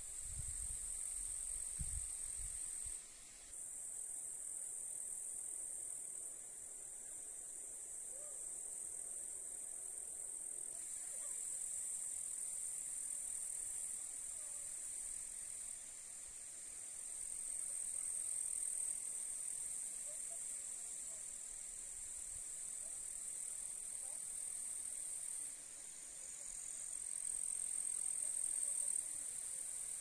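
Insects in meadow grass chirring: a steady, very high-pitched trill that swells louder a couple of times. A few low thumps in the first two seconds.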